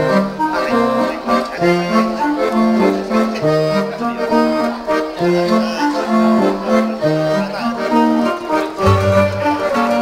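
Dance music: a bouncy tune of short, separate notes over a stepping bass line, with a deeper bass coming in near the end.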